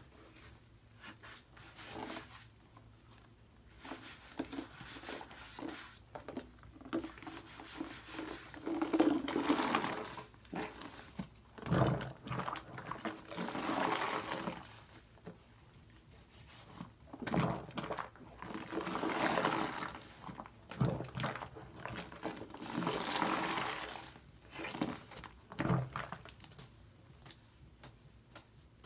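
A foam sponge loaded with shaving-cream lather is squeezed and wrung by hand, giving wet squishing and crackling of foam. The sound comes in repeated swells of a second or two, with a few sharper squelches between them.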